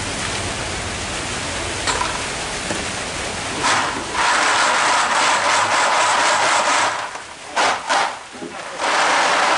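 Small draw balls rattling as they are shaken in a pot, a dense hiss-like clatter that stops and restarts twice near the end.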